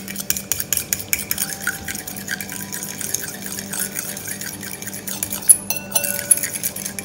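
A utensil stirring and beating an egg, soy-sauce and spice marinade in a bowl: a quick, continuous run of clicks and scrapes against the bowl, with one louder knock about five and a half seconds in.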